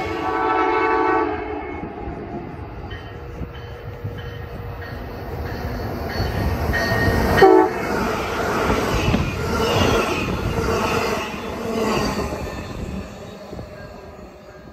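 Amtrak Pere Marquette passenger train sounding a horn blast of about a second, then passing close at speed with a rush of wheel and rail noise. A short loud tone comes about seven and a half seconds in, and the sound fades near the end as the train pulls away.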